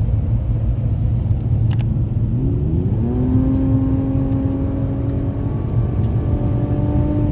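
Car engine and its leaking exhaust, through a blown-out muffler delete, heard from inside the car: a steady low drone, then a couple of seconds in the engine note rises as the car accelerates and holds at a higher pitch.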